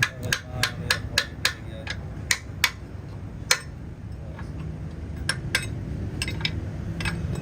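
Hammer striking metal: a quick run of sharp, ringing blows, about four a second, then slower, scattered strikes. A steady low rumble runs underneath.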